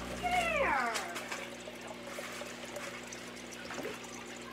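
A single short animal cry, like a cat's meow, falling in pitch and lasting under a second near the start. A low steady hum cuts off just after it.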